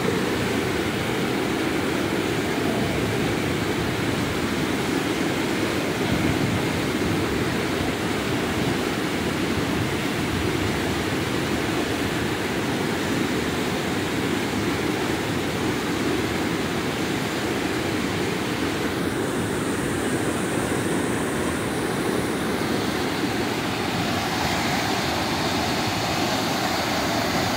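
River water pouring over a low dam's weir and churning in the whitewater below: a steady rushing noise.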